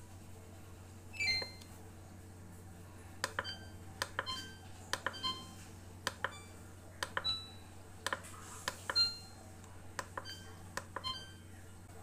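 Samsung Twin Cooling+ refrigerator control panel beeping as its touch buttons are pressed and the settings are stepped through. There is one beep about a second in, then a quick, irregular run of short electronic beeps at several different pitches, each with a faint click of the button.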